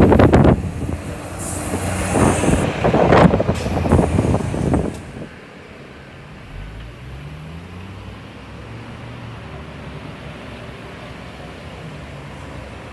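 Diesel city bus passing close by: loud engine and road noise with a brief high whine. About five seconds in the sound cuts to a second city bus, heard more faintly as it approaches, its engine tone rising as it accelerates.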